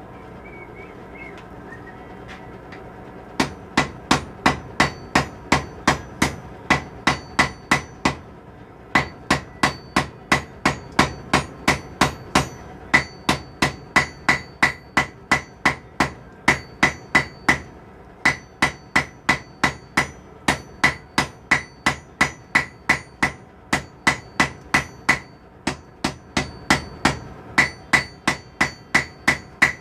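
Blacksmith's hammer striking hot steel on an anvil while forging a pair of tongs, about three blows a second with a clear ring after each. The hammering starts a few seconds in and pauses briefly twice.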